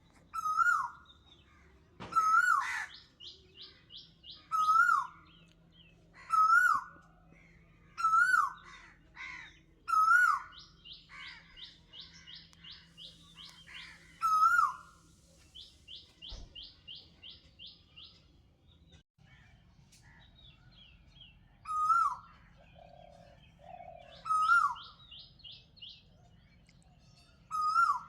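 Songbirds singing: one bird repeats a short loud call every couple of seconds, falling quiet for a few seconds in the middle, while others add quick runs of high trilling notes and faint high warbles.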